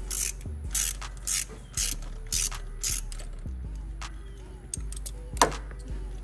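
Socket ratchet clicking as it is swung back and forth, backing out the 13 mm thermostat housing bolts on a 5.7 Hemi, in strokes about two a second, with one sharper click a little after five seconds in.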